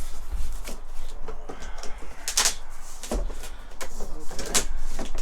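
A cardboard box being handled and unpacked, with several sharp scrapes and knocks of cardboard and the parts inside. The loudest come about two and a half and four and a half seconds in.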